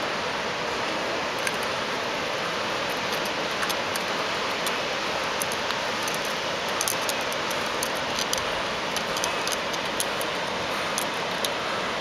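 Steady rush of falling water from a waterfall and the rapids below it, with scattered light clicks over it.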